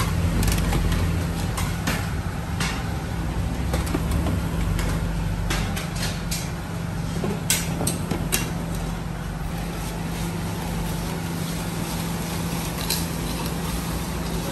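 Steady low hum of bakery machinery, with scattered sharp clanks of metal baking trays being handled and stacked; the loudest clank comes about halfway through.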